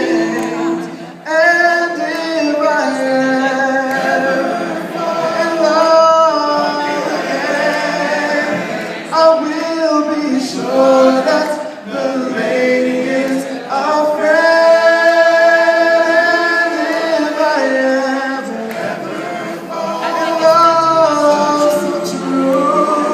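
An a cappella vocal group singing in close harmony, with voices only and no instruments, holding a long chord about two-thirds of the way through.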